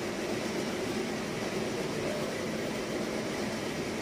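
A steady rushing noise, even throughout, with no distinct knocks, clicks or slurps standing out.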